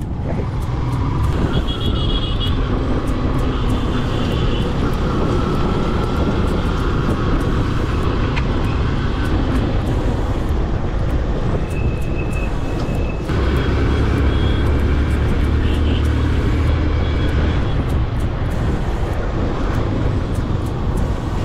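Motorcycle engine running on the move, with wind and road noise over a camera carried on the rider. The low rumble grows louder a little past halfway through.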